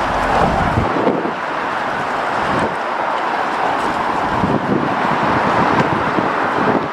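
Steady traffic noise from a dual carriageway, with wind buffeting the microphone in the first second.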